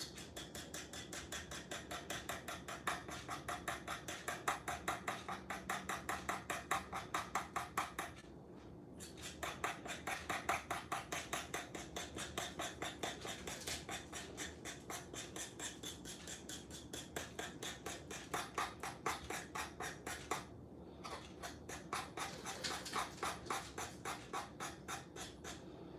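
Fork beating eggs in a well of flour on a marble pastry board, the tines scraping and tapping in quick, even strokes of about four a second. The beating stops briefly twice.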